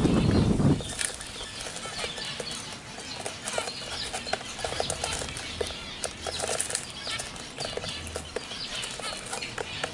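Young zebra finches in a cage, pecking and shuffling in grit: a busy scatter of small ticks and clicks, short calls and brief wing flutters. A louder low rumble cuts off about a second in.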